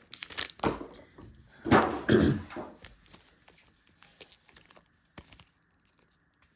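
Cardboard box and packaging of a Pokémon card collection box being handled: two short noisy bursts of handling in the first three seconds, the second the louder, then a few faint clicks and taps.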